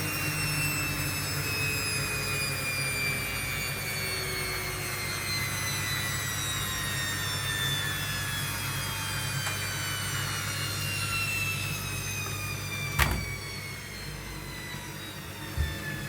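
Washing machine final spin winding down: the motor and drum whine falls slowly and steadily in pitch over a low hum as the drum slows. There is a sharp click about 13 seconds in and a smaller knock near the end.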